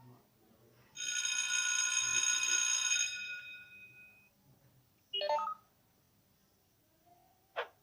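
A telephone-like ringing tone held for about two seconds and fading away, followed by two short blips: one a quick pitched warble, the other a brief sharp chirp near the end.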